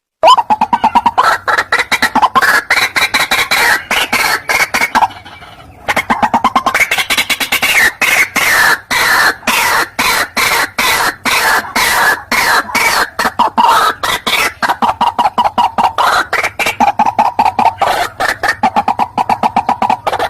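White-breasted waterhen (ruak-ruak) call, a lure recording: a fast run of harsh repeated croaking notes, several a second, with a short break about five seconds in.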